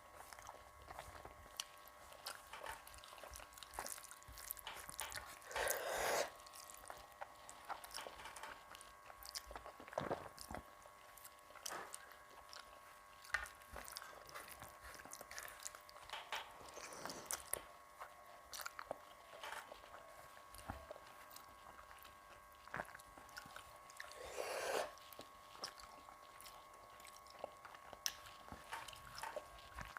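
Close-miked mouth sounds of a person eating rice and curry: soft chewing, smacking and small wet clicks, with two louder bursts about six seconds in and again near the end. A faint steady hum runs underneath.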